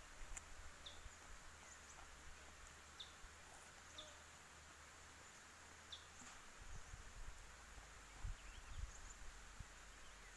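Near silence: faint outdoor ambience with scattered short high chirps, likely small birds. A few low rumbles come about seven to nine seconds in.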